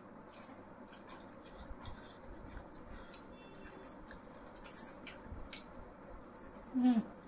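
Hand-eating sounds from two people: irregular small clicks and scrapes of fingers on steel plates, mixed with chewing. A brief hum from one of them near the end.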